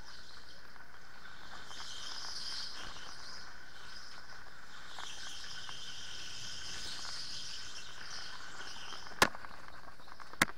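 Electric go-kart running at speed: a steady high-pitched motor and tyre whine that swells and eases through the corners. Two sharp knocks near the end are the loudest sounds.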